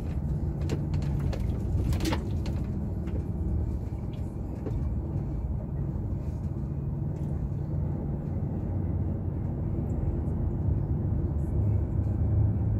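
Diesel truck engine running steadily at low speed, heard from inside the cab as a low rumble with road noise, and a few short clicks or rattles in the first couple of seconds.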